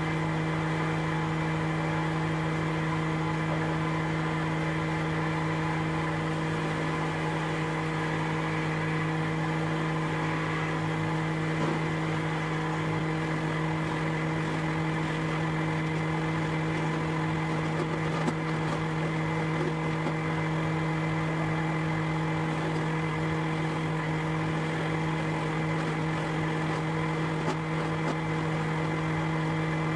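Electric motor of a homemade horizontal boring machine running with a steady hum while its drill bit bores into a linden-wood board, with an occasional faint click.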